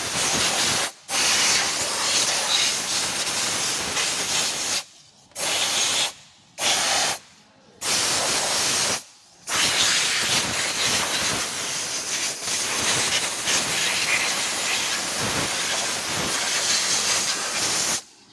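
Compressed-air spray gun hissing in long blasts over an engine bay, with about five brief stops in the first half, then one unbroken blast.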